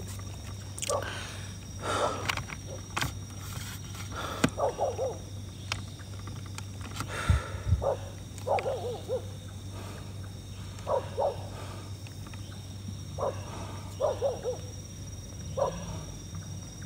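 Short animal calls, repeated one every second or two, over a steady low hum with scattered clicks.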